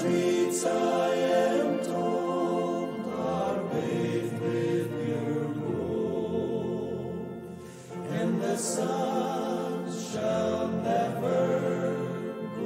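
Male vocal ensemble singing a gospel song in harmony, with a brief break between phrases about seven seconds in.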